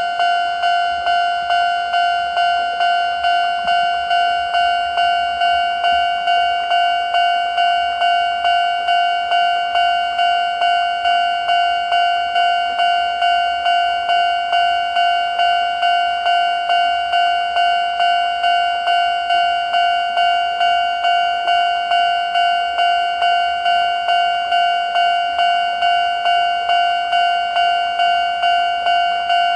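Japanese railway level-crossing warning alarm of the older standard electronic type, ringing its repeated "kan-kan" tone at normal tempo. It gives an even beat of about one and a half strikes a second.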